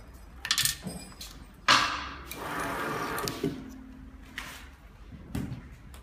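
Electric vial crimping machine running a crimp cycle, sealing a flip-off cap onto a glass vial. It starts with a sharp clack, runs for about two seconds and ends in a short steady hum, with light knocks from the vial being handled before and after.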